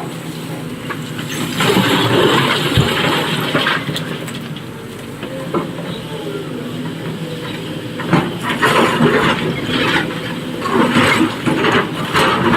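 SANY SY225 excavator's diesel engine running steadily under load, with two long bursts of rock and earth clattering, one about two seconds in and one from about eight seconds to the end, as it loads a dump truck.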